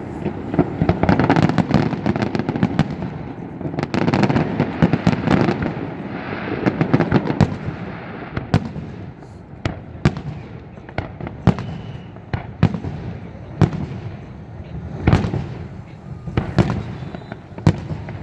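Fireworks display: a dense barrage of crackling and booming shells, thinning about halfway through to separate sharp bangs every second or so.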